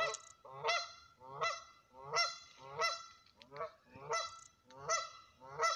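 Canada geese honking in alarm at a dog come down to the water's edge: a steady run of about nine short, evenly spaced honks, roughly one every 0.7 seconds.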